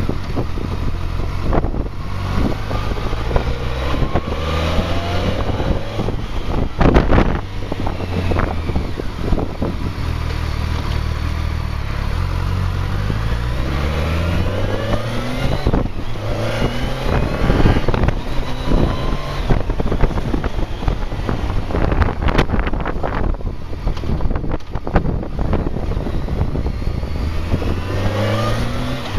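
BMW K1200R Sport's inline-four engine under way, its pitch climbing and dropping back several times as the bike pulls through the gears, with wind buffeting the camera's microphone.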